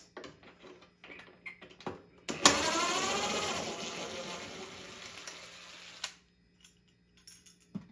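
A power drill runs under load for about three and a half seconds, its motor pitch sagging and its level dropping as it bites into the wooden ceiling, then stops abruptly. Small handling clicks come before it.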